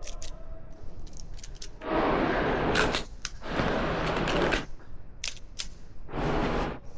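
Airsoft guns firing single shots, about a dozen sharp snaps spread irregularly, most of them in the first second and a half. Three louder bursts of rushing noise come between the shots.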